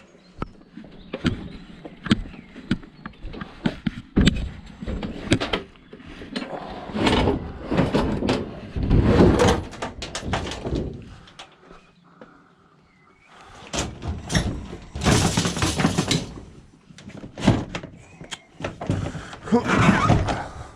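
Metal cooker being heaved and shoved into the back of a van: a run of irregular clunks and thuds with scraping bursts of sheet metal. There are short pauses between the efforts.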